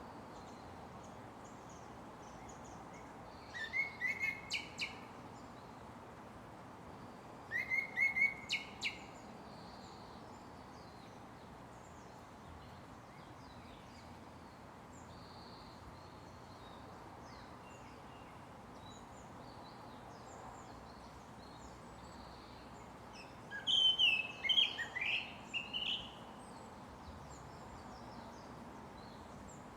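Japanese thrush (Turdus cardis) singing: a short phrase of whistled notes about four seconds in, another about eight seconds in, and a longer, more varied phrase near the end. Fainter bird notes and a steady background hiss fill the pauses.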